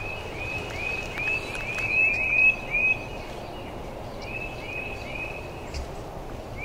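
Outdoor woodland ambience with runs of quick, high, upslurred chirps, several a second, from a small calling bird or frog chorus; the chirping pauses about halfway through and picks up again briefly.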